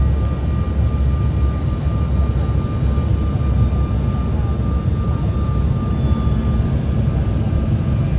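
Steady cabin noise inside an airliner in flight: a low, even rumble of engines and rushing air, with a faint steady whine above it.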